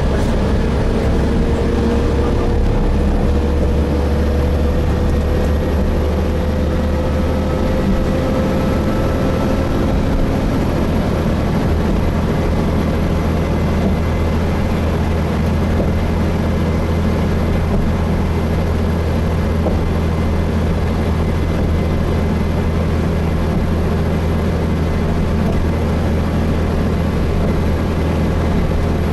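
Gillig Phantom diesel transit bus with Voith transmission running steadily, heard from inside the cabin: a constant low engine drone with road noise, and a faint whine that slowly rises in pitch over the first ten seconds or so.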